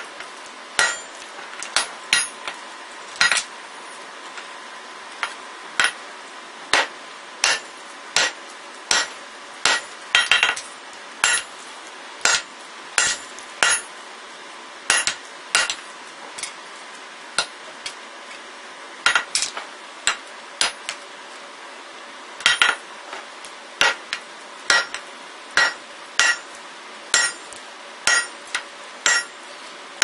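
Hand hammer striking red-hot jackhammer-bit steel on an anvil: sharp, ringing blows, irregular but about one a second, with a pause of a few seconds a little past halfway. The steel is being forged into a cross peen hammer head.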